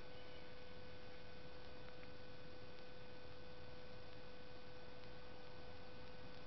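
A steady hum on one held tone over a constant hiss.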